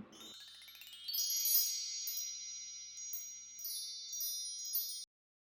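Chimes ringing: a quick rising run of bell-like tones, then several high struck tones ringing over one another, with the loudest about a second and a half in. The sound cuts off suddenly near the end.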